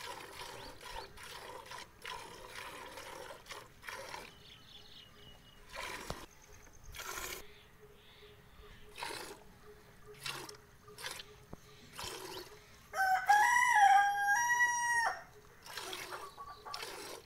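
Milk squirting from a cow's teats into a steel bucket during hand-milking, a short hiss about once a second. Near the end a rooster crows once, about two seconds long and louder than the milking.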